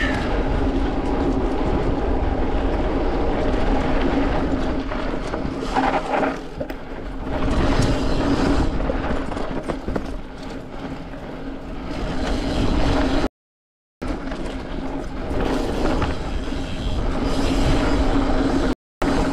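Mountain bike ridden hard along a dirt singletrack: tyres rolling and rattling over the trail with wind rumble on the microphone and a steady low hum throughout. The sound drops out completely twice near the end.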